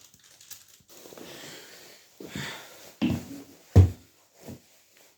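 Fabric rustling and handling noises as a camouflage top is pulled on, with short bumps and one sharp thump a little before the end.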